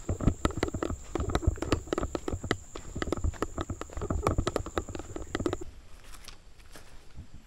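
Footsteps of several people walking uphill, a quick irregular run of steps. A steady high-pitched whine behind them cuts off about five and a half seconds in, and the steps turn fainter after it.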